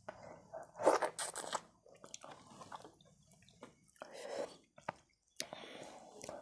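Eating sounds: rice and fish curry mixed by hand on a plate and chewed, in irregular short bursts with a few clicks, the loudest about a second in.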